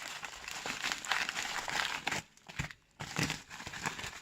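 Hands rummaging in a parcel's packaging, which crinkles and crackles as it is crumpled. It stops for almost a second about halfway through, then starts again.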